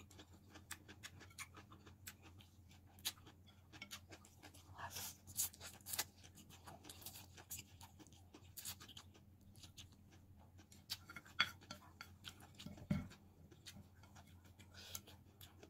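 Close-up mouth sounds of eating spicy instant noodles: chewing and slurping, with many small wet clicks and smacks. One soft knock comes near the end.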